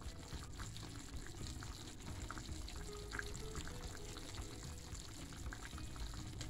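Pot of stuffed peppers and leaf dolmas simmering in tomato-paste broth: steady low bubbling with many small pops.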